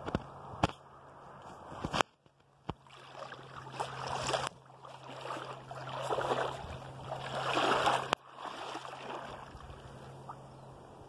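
River water running and gurgling, swelling louder for a few seconds and then cutting off abruptly. Several sharp clicks come at the start, about two seconds in, and again with the cutoff.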